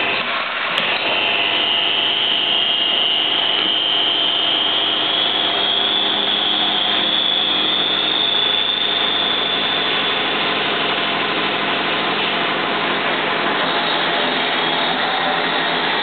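Manual milling machine's spindle and head running steadily, with a high whine that rises in pitch over the first several seconds and then holds. A single click about a second in.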